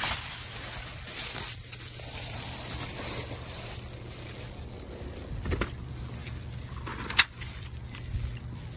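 Plastic trash bags rustling and crinkling as hands dig through them, with phone handling noise over a steady low rumble. A dull thump comes about five and a half seconds in, and a sharp knock, the loudest sound, about seven seconds in.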